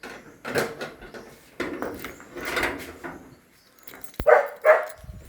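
A dog barks twice, sharply and close together, near the end. Before that come a few short handling noises of work on the car.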